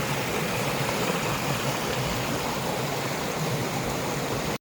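Steady rush of a small stream's running water.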